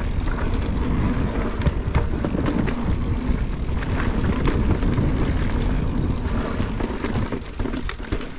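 Mountain bike riding down a dirt trail: a loud, rushing noise of the ride with scattered sharp clicks and rattles from the bike over the terrain.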